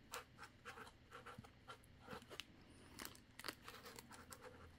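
Sharpie permanent marker writing on a white foam packing block: a quick series of faint, short scratchy strokes as the letters are drawn.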